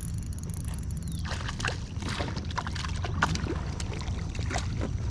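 Water sloshing and splashing irregularly against a kayak, with a steady low wind rumble on the microphone.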